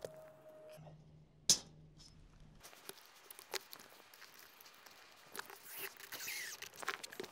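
Scattered light taps, clicks and scuffs of hand work on an asphalt-shingle roof: tools and aluminium roof mounts being handled and knees shuffling on the shingles. One sharp knock comes about one and a half seconds in, and the taps crowd together a little before the end.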